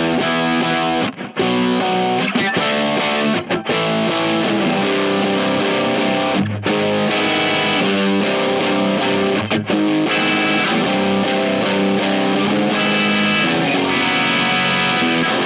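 Electric guitar with high-output humbuckers played through a Wyong Rd Electronics Keris overdrive/fuzz pedal turned well up, into a clean amp channel. Driven chords ring out with added overtones, broken by a few short stops between them.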